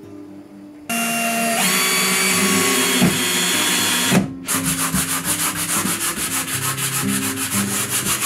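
Cordless drill running against a wall bracket, its motor whine stepping up in pitch, then stopping abruptly about four seconds in. Then a sanding block rubbed on spackled drywall in quick back-and-forth strokes, about six a second.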